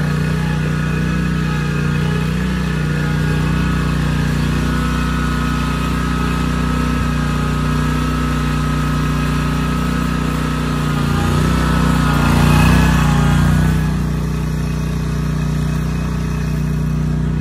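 Wright 32-inch stand-on zero-turn mower's engine running steadily as the mower drives, growing louder as it passes close about three-quarters of the way through, then easing back.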